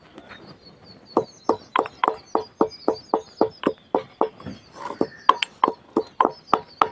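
Stone pestle pounding whole black pepper, fennel and cumin in a small stone mortar: sharp, even knocks about three to four a second, starting about a second in.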